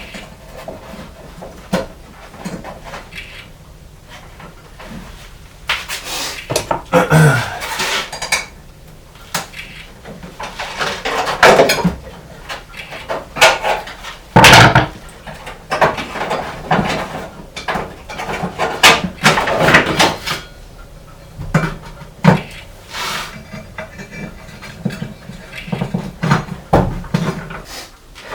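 Metal tools and parts clinking, clanking and rattling as they are handled during hands-on disassembly of a truck's engine parts, in irregular knocks with the loudest ones near the middle.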